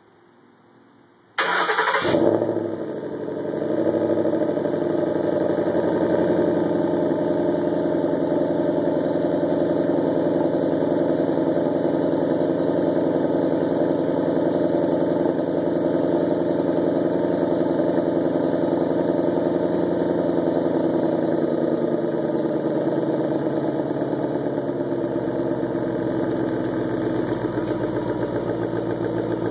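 2011 Ford Mustang GT's 5.0 V8 starting about a second and a half in, catching with a short flare, then idling steadily through new SVT exhaust pipes, the idle easing a little lower near the end. This is the first start after the Ford Racing Pro-Cal performance tune was programmed.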